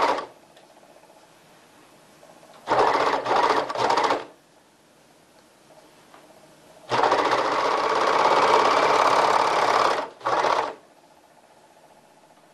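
Overlock machine (serger) stitching and trimming a seam's raw edge, running in bursts: a short run about three seconds in, then a longer run of about three seconds starting about seven seconds in, followed by a brief blip, with pauses between.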